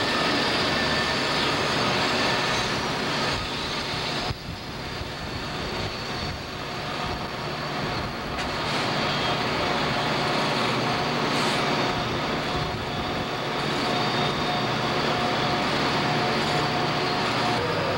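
A CSX coal train rolling on the rails, with the steady running of its diesel locomotives and the noise of the wheels on the track.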